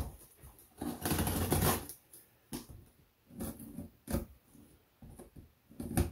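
Scissors slitting the packing tape along a cardboard box's seam: a longer scraping rip about a second in, then a string of shorter scrapes and taps against the cardboard.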